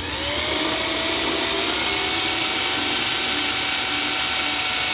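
Power tool running: its motor whine rises as it spins up at the start, then it runs steadily with a strong hiss.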